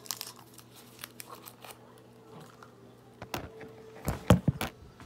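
Scattered light clicks and rustles of small objects being handled, with a cluster of louder knocks about four seconds in.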